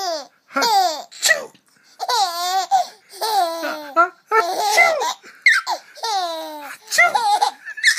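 Baby laughing hard in a string of high-pitched bursts, each falling in pitch, with breathy gasps between them.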